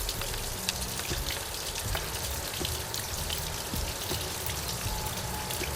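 Water steadily spattering and splashing from the garden-hose flushing setup on a Johnson 150 outboard, full of small crackles, with a low rumble underneath from the engine running.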